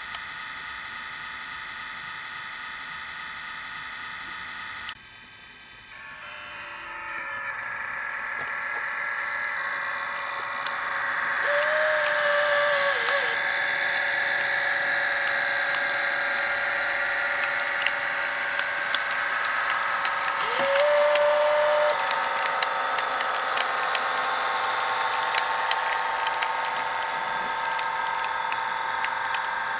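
OO gauge model electric train running along the track: a steady motor whine, then after a break a hum that builds as the train approaches and stays up, with light clicking from the wheels. Twice a brief clear tone sounds over it.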